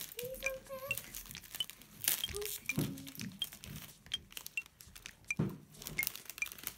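Plastic snack wrapper crinkling and crackling as a Pocky packet is snipped open with scissors and handled, with a few brief murmured voice sounds.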